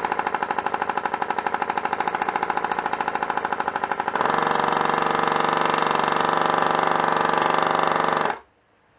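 3D-printed single-cylinder compressed-air engine running with a rapid, even beat of about twelve a second. About four seconds in it gets louder and faster, then near the end it stops suddenly.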